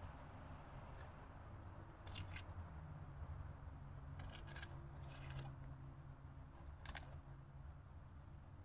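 Kitchen knife scraping and nicking the dry papery skins off garlic cloves: a handful of short, crisp scrapes, a couple of them close together in the middle.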